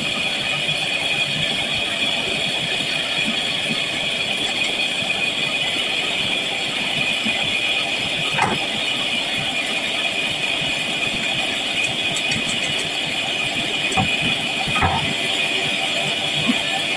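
A steady mechanical hum and hiss, with irregular scraping and a few short knocks as a red snapper is scaled with a fish scaler on crushed ice in a steel tray.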